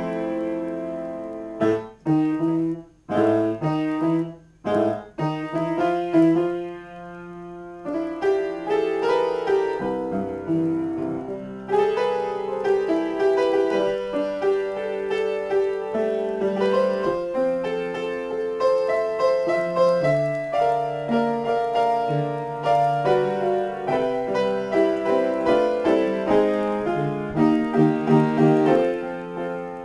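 Upright piano played solo in a free improvisation: a few short, separated chords with pauses between them, then a held chord, and from about eight seconds in, continuous flowing playing.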